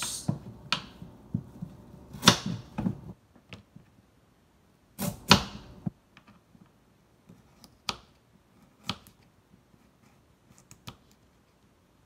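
Kitchen knife slicing a carrot on a wooden cutting board: irregular knocks of the blade striking the board, with two longer, louder cuts about two and five seconds in, then sparse light taps.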